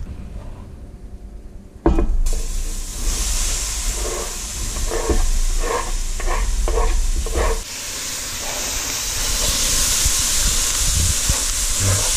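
Chopped onions and green peppers going into a hot dark roux in a cast iron pot: a sudden thump about two seconds in, then a hissing sizzle with a lot of steam that grows louder in the second half, with a wooden spoon scraping the pot in regular strokes as they are stirred in.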